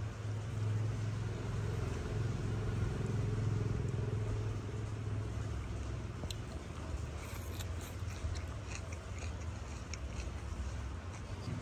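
Chewing crisp salad leaves, with small crunches and clicks through the second half. A low rumble runs under the first half and fades about halfway.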